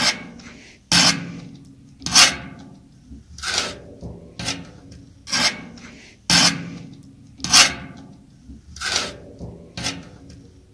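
A flat metal spatula scraping through cooked rice and across the bottom of a large metal cooking pot while the rice is mixed. It makes repeated scraping strokes, about one a second.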